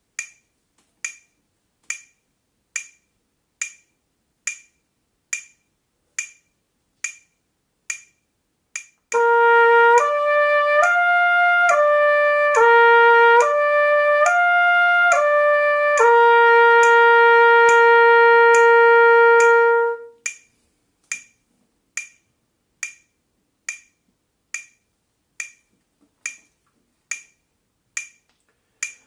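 Metronome clicking at about 70 beats a minute. About nine seconds in, a trumpet plays a slurred lip-flexibility exercise with no valves pressed, moving up and down between three natural harmonics in quarter notes. It ends on a held low note of about four seconds, after which the metronome clicks on alone.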